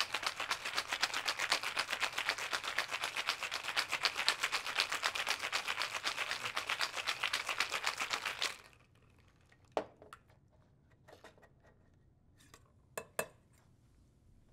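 Ice rattling hard inside a two-piece stainless steel cocktail shaker in a fast, even rhythm, a firm shake meant to chill the drink and break up soft dragon fruit cubes without muddling; it stops abruptly about eight and a half seconds in. Then a few sharp metal knocks and clinks from the shaker tins.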